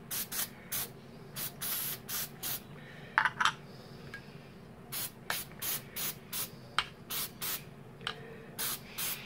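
Aerosol can of auto degreaser sprayed in many short squirts onto the greasy gears of a Kenwood Chef mixer gearbox, to dissolve the old grease. The squirts come about two or three a second, pause briefly about four seconds in, with one brief louder sound about three seconds in.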